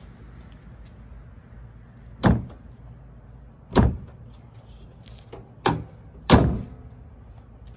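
Fiberglass cowl hood on a Ram 2500 pickup slammed shut, four sharp loud bangs with a brief ringing after each, about a second or two apart.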